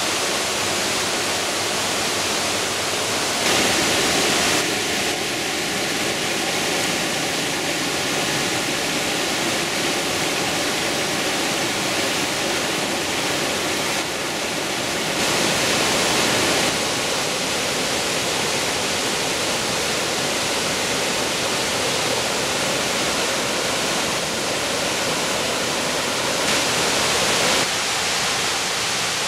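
Steady rushing of a mountain stream pouring over rocks in small cascades, with two short stretches where the water sounds louder and brighter.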